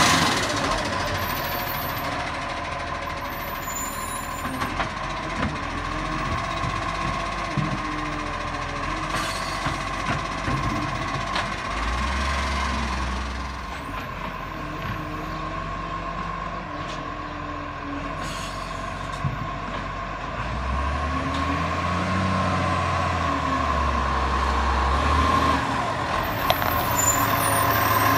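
Iveco side-loader garbage truck's diesel engine running as it moves along the street, swelling twice with the throttle and growing louder as it draws near toward the end. A steady high-pitched tone sounds over it, with a few short air-brake hisses.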